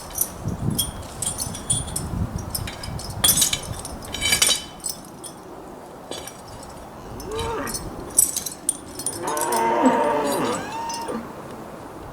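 Dairy cows mooing twice, a short call about seven seconds in and a longer one near the end, which the farmer puts down to their smelling the freshly opened silage. Light metallic clinking and rattling comes before the calls.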